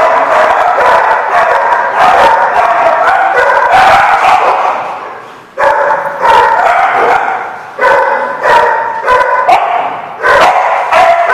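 Several dogs barking together, nearly without pause. The barking dies away briefly about five seconds in, then starts up again in repeated bursts.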